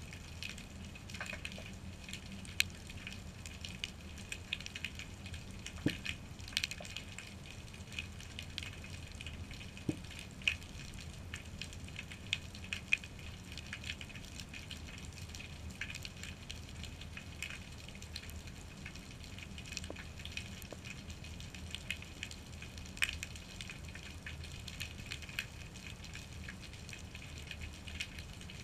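Underwater ambience picked up through a GoPro's waterproof housing: a steady low hiss and rumble with scattered faint clicks and crackles, a few sharper ticks standing out here and there.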